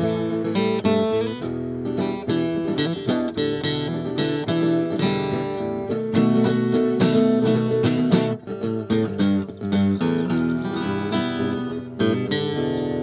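Acoustic guitar playing an instrumental piece in a run of quick plucked and strummed notes.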